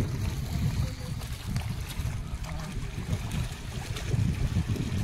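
Lake water splashing and lapping at a rocky shore as a hooked fish is scooped into a landing net, over a steady low rumble.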